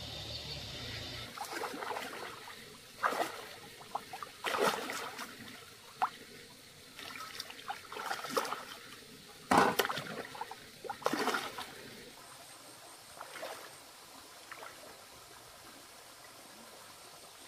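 Shallow river water splashing and sloshing as hands grope around a submerged rock, in irregular bursts, the loudest a little past the middle, then tapering off.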